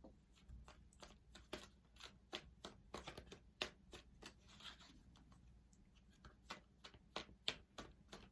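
A deck of tarot cards being shuffled by hand: a faint, quick run of soft card clicks and snaps, several a second.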